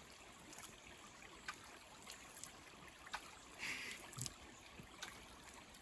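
Faint splashes of hands slapping the surface of a creek over the steady trickle of flowing water. The loudest splash comes about two-thirds of the way in.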